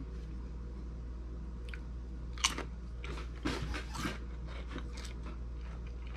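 Tortilla chip with hot sauce bitten and chewed, a run of crisp crunches starting about two and a half seconds in and fading out after about three seconds, over a steady low hum.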